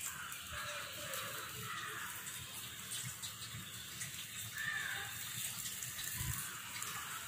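Egg paniyaram batter sizzling in oil in the hollows of a cast paniyaram pan, a steady hiss.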